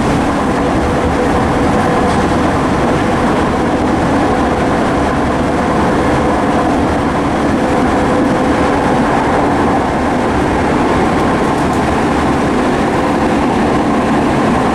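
Cabin noise of a Southeastern Class 465 Networker electric multiple unit running at speed: a steady rumble of wheels on the track with a steady whine running through it.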